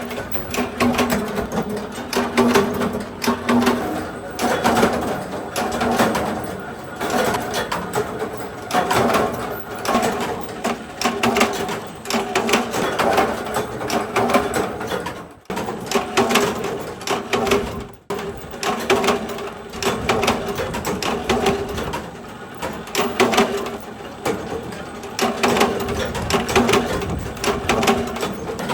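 Workshop machine running with a fast, even clatter of rapid clicks over a steady hum, cutting out briefly twice past the middle.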